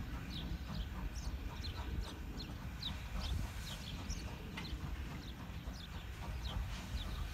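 Birds chirping: a steady run of short, high, falling notes, a few a second, over a constant low rumble.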